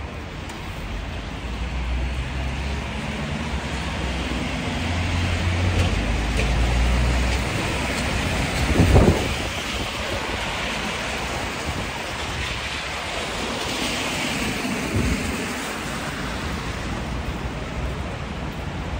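Outdoor street sound in winter rain: a steady hiss of rain and traffic on wet pavement that swells twice, with low wind rumble on the microphone over the first several seconds and a brief loud thump about nine seconds in.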